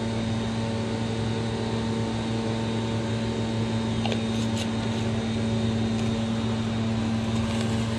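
A steady low machine hum, with a couple of faint clicks about four seconds in.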